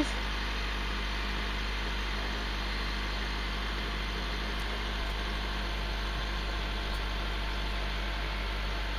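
Steady low background rumble and hiss, unchanging throughout, with a couple of faint ticks.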